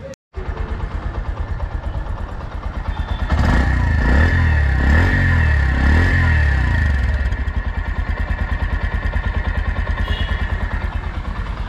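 Bajaj Platina 110 motorcycle's 115cc single-cylinder air-cooled engine, heard close at the exhaust muffler. It idles with a steady pulse, is blipped about three times between roughly three and seven seconds in, then drops back to idle.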